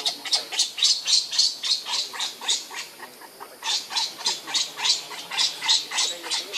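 Baby macaque crying in a rapid run of short, high squeals, about three or four a second, with a brief pause about halfway through.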